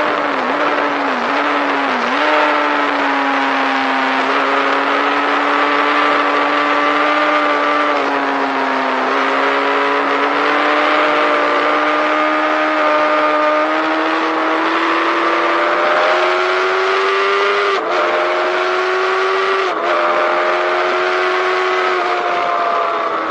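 Sport motorcycle engine at high revs, heard from a tank-mounted onboard camera under heavy wind rush. The engine note dips briefly three times near the start, drops a couple of times later, and otherwise climbs slowly.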